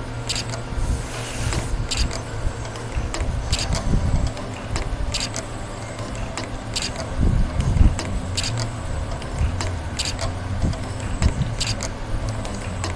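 CSC 3A5 spring coiling machine running on fine wire: a steady motor hum with a sharp mechanical click every second or so as each coiling cycle runs, and a brief hiss about a second in.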